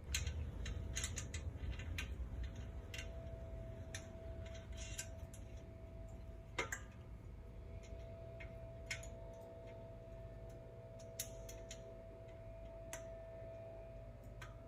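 Light, irregular metallic clicks and ticks of hex bolts and flange nuts being fitted by hand into a mower's steel foot pan, most frequent in the first few seconds, over a faint steady hum.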